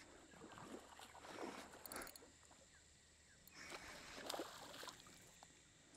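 Faint splashing of a small barramundi hooked on a surface popper, thrashing at the water surface, loudest about four seconds in.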